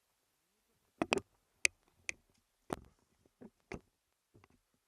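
A run of about eight sharp clicks and snaps, irregularly spaced, starting about a second in.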